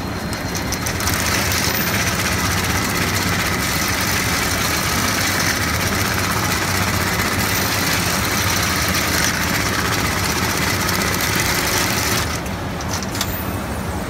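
Automatic big-bag sewing machine running, stitching a yellow webbing lifting loop onto bag fabric with a fast, steady needle rattle. It starts about a second in and stops near the end, leaving a lower background hum.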